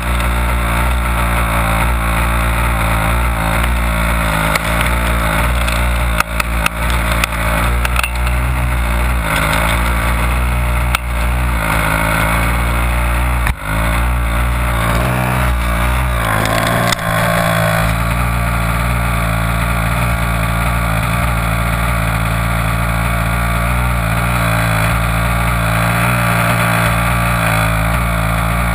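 Small two-stroke petrol engine of a 1/5-scale HPI Baja 5B RC buggy running close to the onboard camera, its pitch mostly steady, with a few short knocks and clicks as the car is handled.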